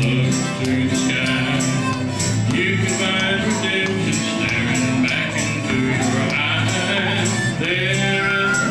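Live acoustic country band playing: a harmonica carrying the wavering melody over strummed acoustic guitars, with a steady beat of strokes about twice a second.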